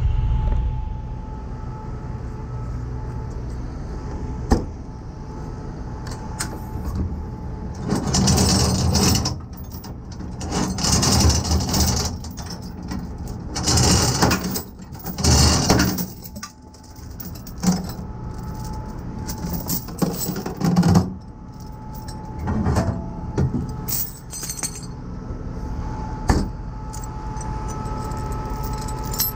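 Heavy steel tow chains rattling and clanking in several bursts as they are pulled from a tow truck's side compartment and laid on concrete, over a truck engine idling steadily.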